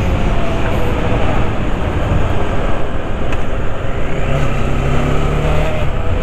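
Motorcycle being ridden at road speed: the engine running steadily under a dense rush of road and air noise, with a low steady note standing out for about a second past the middle.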